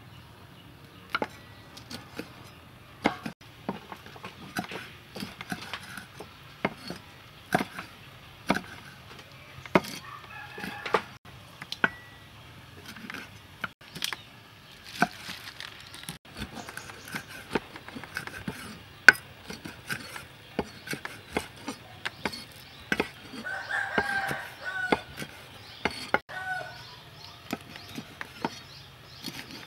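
Knife cutting limes in half on a thick wooden chopping block: a long run of sharp, irregular knocks as the blade hits the wood. Short bird calls sound in the background about 24 seconds in.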